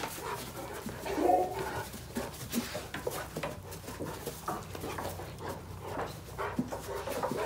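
Two dogs playing together, with a few short, soft dog vocal sounds about a second in and scattered scuffles and knocks throughout.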